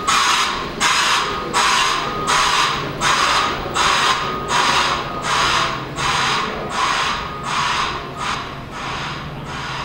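Pushback tug's broadband reversing alarm: short bursts of rushing noise repeating a little more than once a second, slowly growing fainter.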